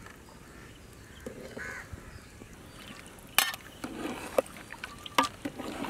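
A metal ladle knocks and clinks sharply against the rim of a large metal cooking pot several times while rice is stirred in the water. Earlier there is a brief harsh bird call.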